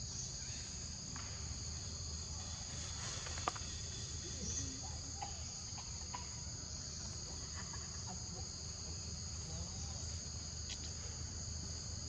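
Steady insect chorus in forest undergrowth: a continuous high, even buzz. A single sharp click sounds about three and a half seconds in.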